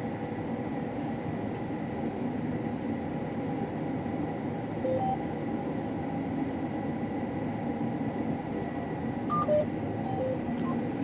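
Combine harvester running steadily while cutting wheat, a constant machine drone with a steady high tone. A few short electronic beeps sound about five seconds in and again near the end.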